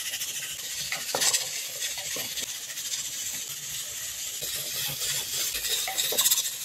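Chicken-feet stew sizzling in an open pressure-cooker pot on a gas stove, a steady hiss, with a few light knocks and clinks as ingredients are added and stirred in. The knocks are loudest about a second in and again near the end.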